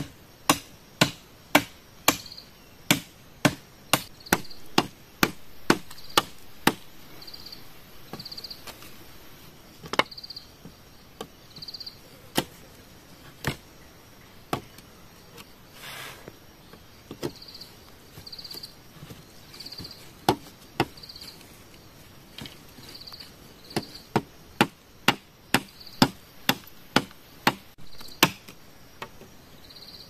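A machete chopping into a green bamboo pole resting on a log: sharp knocks in quick runs of about two a second, with sparser single strokes in between. A short high insect chirp repeats every second or so behind the chopping.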